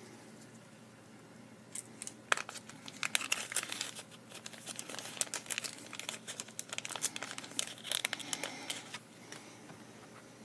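Paper and plastic crinkling and tearing as a small piece of sticker is torn off to serve as a balance weight. The crackling is irregular, starts about two seconds in and stops about a second before the end.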